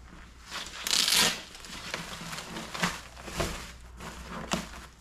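Plastic wrapping on a new wheel crinkling and tearing as it is pulled and handled. The loudest part is a rasp about a second in, followed by several shorter crinkles.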